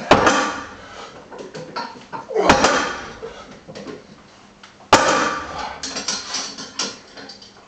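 A stack of weight plates on a Rolling Thunder grip handle's loading pin set down hard on a floor mat three times, about two and a half seconds apart. Each set-down is a sharp thud with the plates clanking against each other and the pin.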